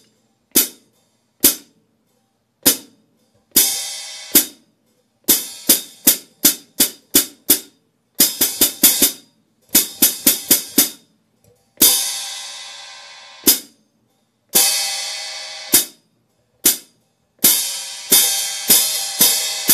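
Pair of 13¼-inch Zildjian K Custom Hybrid hi-hats played alone, closed with the pedal for a bright 'chick'. The strokes come singly and in quick runs, some cut short and others left ringing for a second or more.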